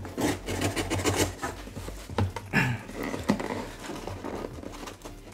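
Packing tape and a paper shipping label being peeled and torn off a cardboard box, in irregular rips and rustles.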